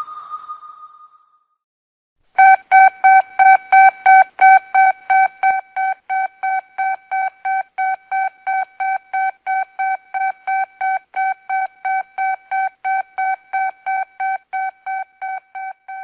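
A sonar-style ping fades out at the start. After a short pause, an electronic alarm begins beeping rapidly and evenly, about three beeps a second, with the first several beeps louder than the rest.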